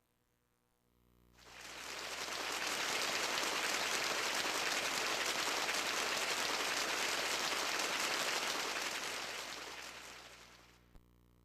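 A karaoke machine's built-in sound effect: an even, crackly rushing noise, like rain or a stream, that fades in about a second in, holds steady, and fades out near the end.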